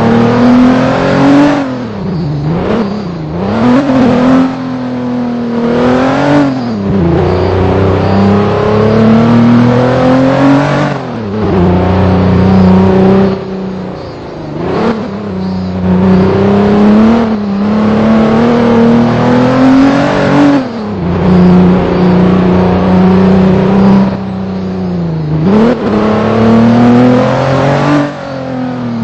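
Vehicle engine under way, its pitch repeatedly climbing as it revs and then falling back, a dozen or so times.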